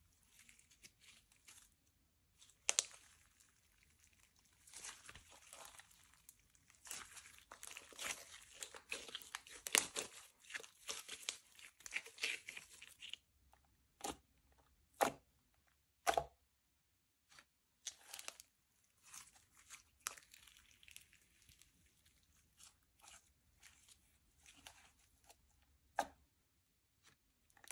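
Slime being worked by hand, sticking and tearing apart with crackling and small pops. The crackling is dense for the first half, thins to a few sharp single pops, then comes back in looser bursts.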